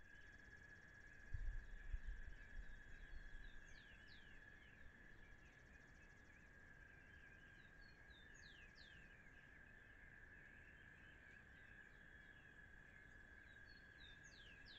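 Outdoor ambience of insects and birds. A steady high-pitched insect drone runs throughout, and a bird calls in quick falling whistles three times. A few low thumps come about a second in.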